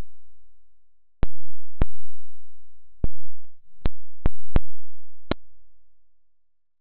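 Film canister rockets popping one after another: about eight sharp, irregularly spaced pops as carbon dioxide pressure blows the caps off, heard slowed down in slow motion.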